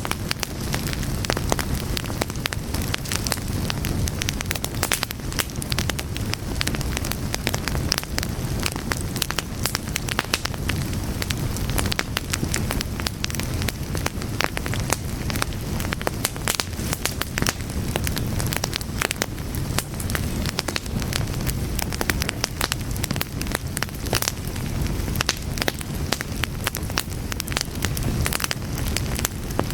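Fire burning, with a steady low rumble under dense, irregular sharp crackles and pops.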